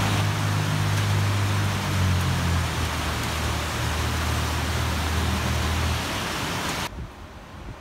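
Steady rain falling, an even hiss, with a low steady hum beneath it for most of the time. The rain cuts off abruptly near the end.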